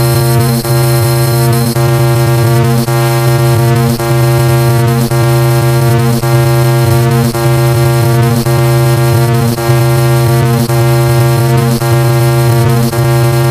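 Car horn beep layered on top of itself many times over, merging into one loud, unbroken blare of many steady tones sounding at once.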